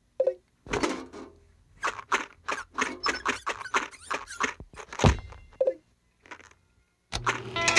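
Cartoon sound effects: a quick, uneven run of clicks and clacks with a few short squeaks. Near the end, a sustained music chord comes in.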